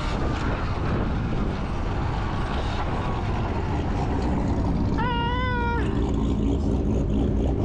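Steady low rumble of vehicles and wind noise, with one short high-pitched wailing tone about five seconds in.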